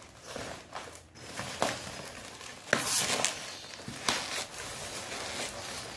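Cardboard box being torn open by hand: packing tape and cardboard ripping and rustling in short bursts, the loudest about three seconds in.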